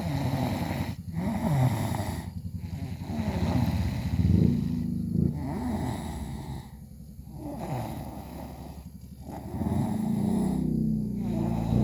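Steady, rhythmic snoring: a low, rattling buzz on each breath, with a short pause between breaths every two seconds or so.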